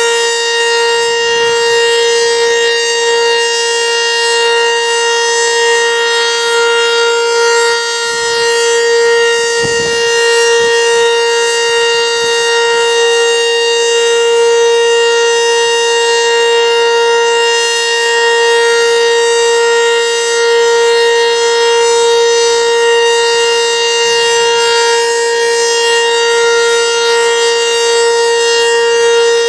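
ACA Banshee outdoor warning siren sounding a steady tone on its weekly test, the pitch held level while the loudness swells gently. A brief gust of wind hits the microphone about ten seconds in.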